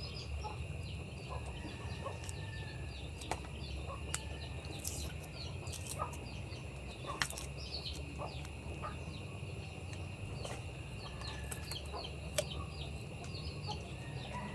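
Chickens and small birds clucking and chirping faintly in the background, over a steady high whine and a low hum, with scattered sharp clicks.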